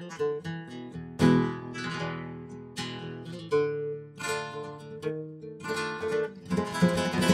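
Background music on acoustic guitar: single plucked notes that ring and fade, with strummed chords, and a louder run of fast strumming near the end.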